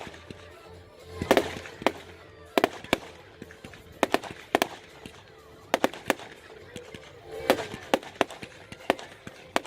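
Fireworks going off: a dozen or so sharp bangs and crackles at irregular intervals, about one every half second to second.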